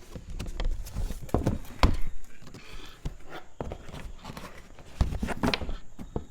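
Handling noise from a charger's packaging: an uneven run of knocks, clicks and rustles.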